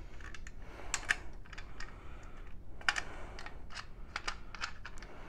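Key inserted and turned in the lock of a Simplex T-bar fire alarm pull station, and the station's front opened. The result is a run of irregular sharp clicks and rattles, with the loudest about a second in and near three seconds.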